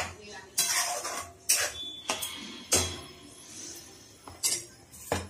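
A metal spoon clinking and scraping in a cooking pan: a string of sharp knocks, roughly one every half second to a second, some followed by a brief scrape.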